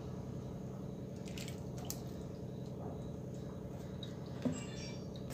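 Faint squelching and dripping of a hand kneading fresh homemade butter in water in a steel bowl, washing out the leftover milk, over a steady low hum. A small knock about four and a half seconds in.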